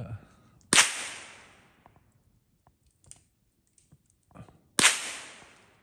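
Two gunshots about four seconds apart, each a sharp crack followed by a tail that dies away over about a second.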